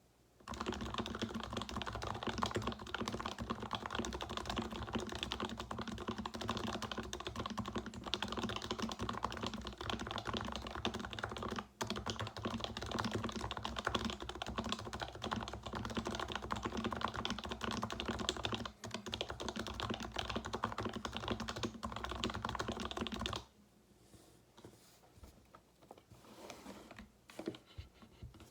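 Fast, continuous typing on a computer keyboard, with quick key clacks running together, briefly pausing twice. It stops about 23 seconds in, and only a few scattered key clicks follow.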